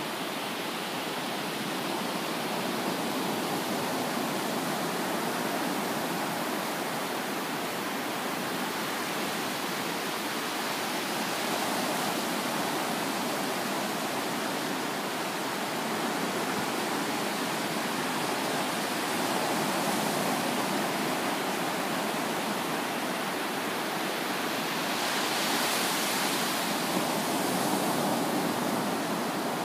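Ocean surf: low waves breaking and washing up the beach in a steady rush, swelling louder a few times, most of all near the end.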